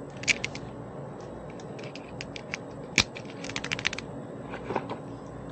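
Hands handling small mounting hardware: scattered light clicks, a sharp snap about three seconds in, then a quick run of rapid clicks lasting about half a second.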